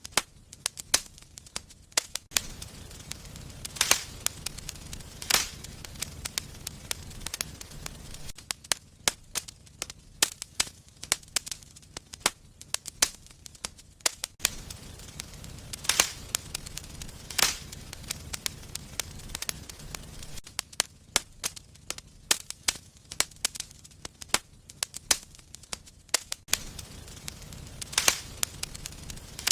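Wood fire burning in a fireplace: irregular crackling with sharp pops and several louder snaps, over a low rumble that comes and goes.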